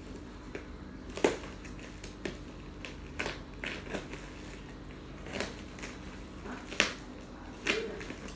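A parcel's plastic wrapping and packing tape being slit with a knife and torn by hand: irregular crinkling and crackling, with a few sharp snaps, the loudest about a second in and near the end.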